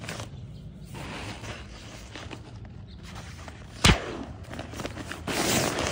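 Nylon fabric of an inflatable sleeping pad rustling as it is handled, with a sharp plastic snap about four seconds in as the valve cap is worked.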